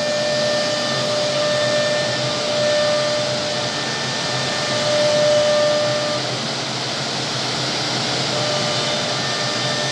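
Single-spindle CNC wood router (Woodmaster WM-RT1325V) running, its spindle cutting a board with a steady hissing whine; the whine fades out about six seconds in and comes back near the end.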